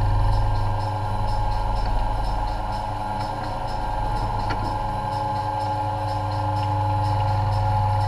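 Steady electrical or machine hum made of several constant tones, with a faint high ticking about four times a second and a single short click about halfway through.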